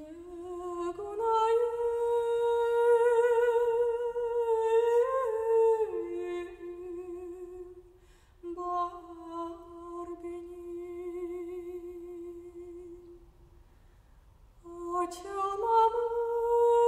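A woman singing slow, long-held notes with a wide vibrato. She breaks briefly for breath about eight seconds in and again near fourteen seconds, then comes back in on a rising note.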